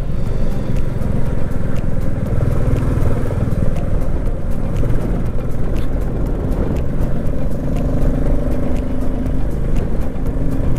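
Motorcycle engine running at a steady cruise, with road and wind noise and irregular light clicks throughout.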